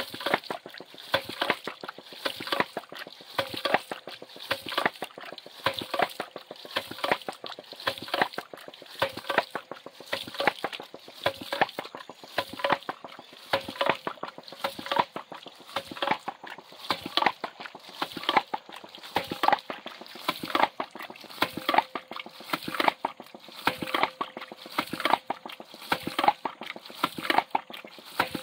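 Hydraulic ram pump running: its waste valve clacks shut in a steady repeating beat, each stroke sending a spurt of water splashing out onto the ground.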